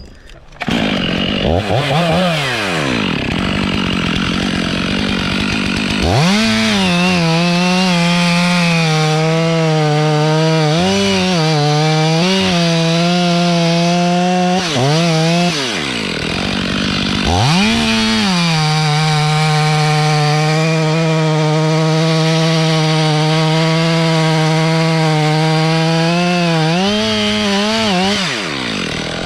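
Chainsaw revving up, then running at steady high revs through two long cuts into tulip poplar wood, dropping back briefly about halfway and winding down near the end.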